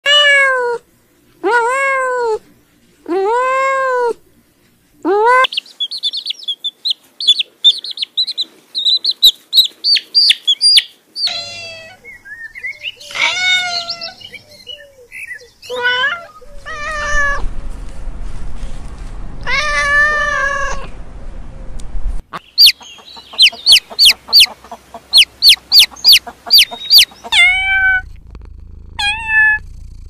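Kittens meowing, several of them one after another. There are four long, arching meows at the start, then a run of rapid high-pitched mews, more drawn-out meows about halfway through, and a quick string of short, sharp, squeaky mews near the end.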